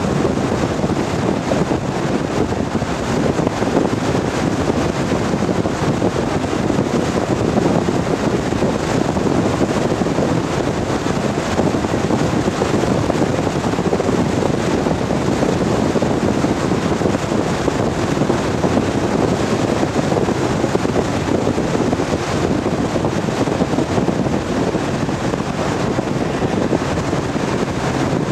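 Steady cabin noise of a Lotus Elan M100 at speed, its 1.6-litre four-cylinder engine running under even load, mixed with tyre and wind noise.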